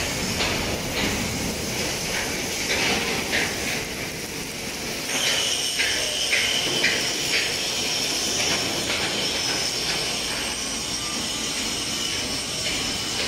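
Steel-fabrication shop noise: repeated metal clanks and knocks over a steady hiss, and from about five seconds in a high, steady whine joins in.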